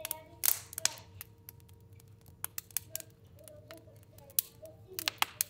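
Fire burning in a stove, crackling with irregular sharp pops. A louder burst of pops comes about half a second in, and another cluster near the end.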